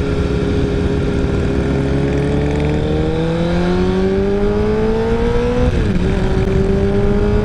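Honda CBR1000RR's inline-four engine pulling under acceleration, its note climbing steadily. Near six seconds in the pitch drops sharply as it shifts up a gear, then it starts climbing again, over a steady low wind rumble.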